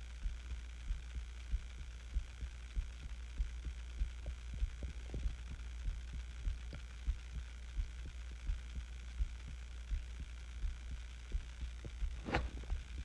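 A person's heartbeat recorded close up, a steady, fairly quick beat of about one and a half beats a second, from someone sick with the flu. A short rustle comes near the end.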